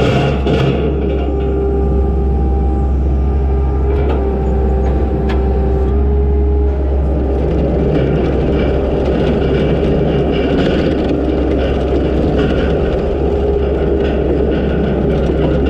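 Takeuchi TL250 compact track loader's diesel engine running steadily under work, a low constant drone with a steady tone above it, as the loader raises its pallet forks and turns on its tracks.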